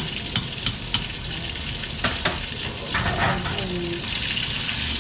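Battered mahi-mahi pieces deep-frying in a wok of hot oil: a steady sizzle, with sharp ticks through the first second and a couple more about two seconds in.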